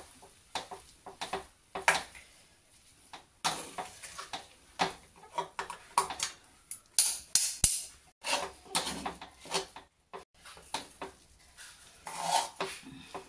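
Metal spoon scraping and clinking against an aluminium kadai in quick, irregular strokes as cooked broken-wheat upma is stirred and turned.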